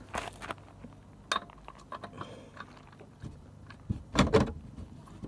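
Metal hand tools clinking and knocking under a car as a socket extension is worked on the oil filter to take it off, with a few louder knocks about four seconds in.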